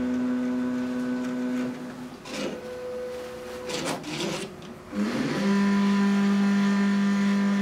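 Drive motors of an RTI Vortex 4200 Memjet printer's service station running as the stations move up to the platen position. There is a steady mechanical hum for about two seconds, a brief higher whine around the middle, and after a pause a lower, louder hum that holds through the end.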